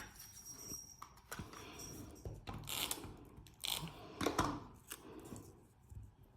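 Paper pieces being handled and set down on cardstock: a few short rustles and small clicks.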